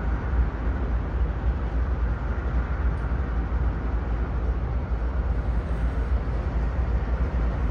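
Norfolk Southern diesel locomotives rolling past slowly with a steady low rumble.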